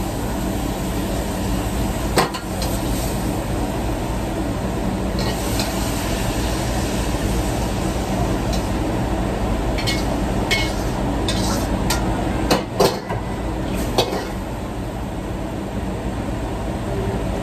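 Steady noise of a restaurant wok range and its exhaust hood, with a metal ladle clanking and scraping against the steel wok and food sizzling. The clanks come now and then, with a quick cluster of them near the end.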